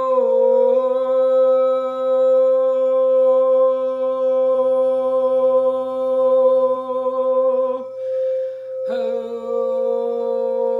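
A frosted quartz crystal singing bowl rubbed with a wand, sounding one steady ringing tone. A woman's voice holds long sung notes an octave below it. The voice breaks for a breath about eight seconds in and comes back about a second later, while the bowl's tone carries on unbroken.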